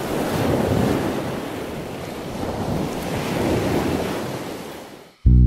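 Sea waves breaking and washing up the beach close by, swelling twice. The surf fades out near the end as music cuts in.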